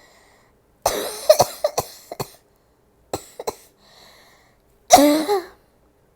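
A woman coughing openly and unsuppressed: a fit of about six quick coughs about a second in, two more a little after three seconds, and a longer cough with voice in it near the end.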